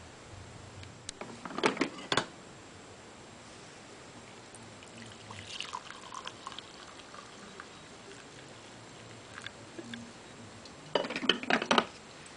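Mr Coffee CG13-RB drip coffee maker gurgling in short bursts at the end of its brew cycle, with a couple of louder gurgles about a second and a half in and near the end, and faint ones in between; when the gurgling stops, the coffee is done.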